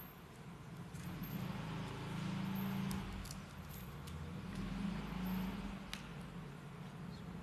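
Quiet room ambience: a low hum that swells and fades, with a few faint clicks about three and six seconds in.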